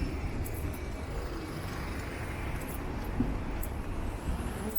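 Street ambience: a steady rumble and hiss of road traffic, with no clear single event.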